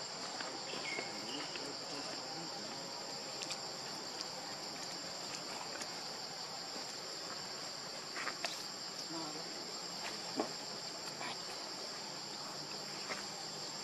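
Steady high-pitched drone of insects, with a few faint soft clicks and rustles scattered through it.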